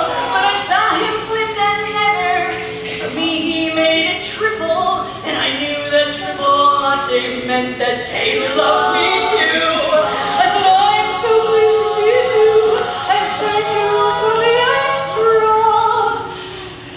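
Women's barbershop quartet singing a cappella in four-part close harmony, with sustained chords; the phrase ends and the level drops near the end.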